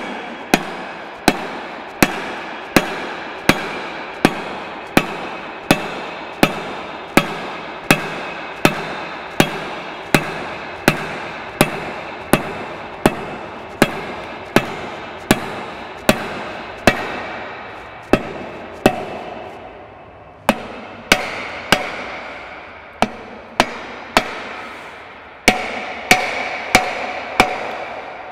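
A mallet striking the splined output shaft of a JBS wide body spreader beater gearbox, hitting the white cap on its end. It makes steady blows about three every two seconds, each followed by a short ringing, as the shaft is driven down into its bearing.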